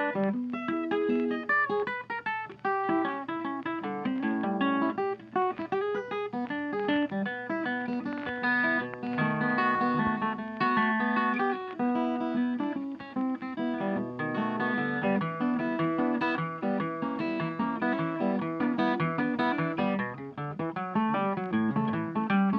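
Background music: plucked acoustic guitar playing a quick run of notes.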